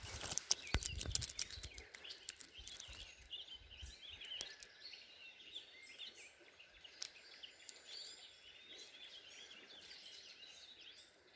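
Songbirds singing and chirping over a faint steady stream hiss. In the first two seconds there is a louder burst of clicks and rustling.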